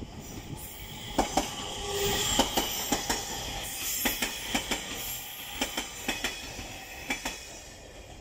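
JR East E721-series electric train passing without stopping, its wheels clacking over rail joints in quick pairs of beats over a steady running rumble and hiss. The sound swells about two seconds in and fades toward the end.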